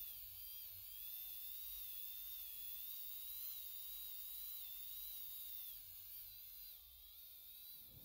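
Dremel rotary tool spinning a polishing wheel against a brass nut, a high whine that wavers in pitch as the wheel is pressed on and eased off the metal.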